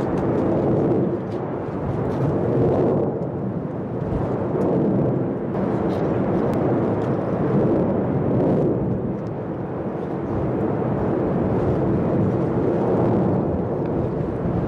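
Volcanic eruption with a lava fountain: a continuous rushing rumble that swells and eases every few seconds, with faint crackles.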